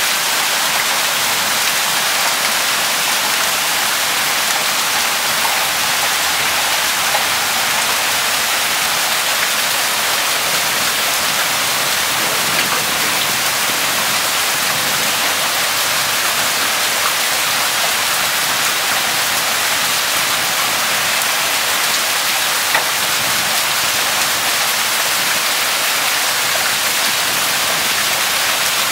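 A heavy hailstorm with hail and rain pelting down steadily. It makes a dense, even hiss with scattered sharper ticks of hailstones striking.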